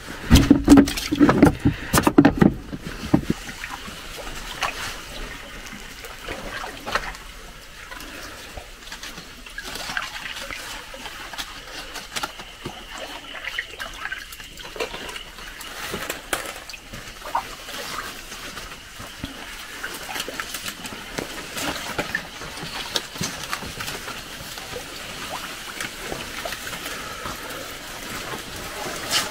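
Water sloshing and trickling around a small wooden boat as it is poled through a swamp channel. The first few seconds hold a burst of knocks and handling on the wooden deck.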